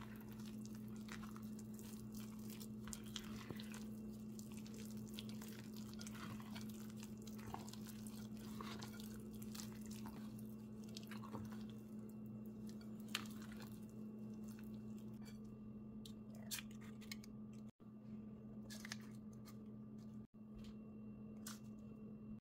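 Silicone spatula folding thick banana muffin batter in a glass bowl: irregular wet squishing, scraping and light taps against the glass. A steady low hum runs underneath.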